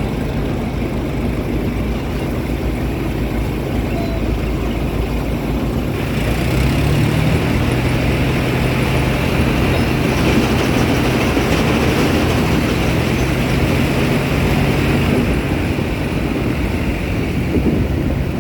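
John Deere rice combine harvester running steadily. About six seconds in it grows louder and harsher, with a steady hum, then eases back after about fifteen seconds.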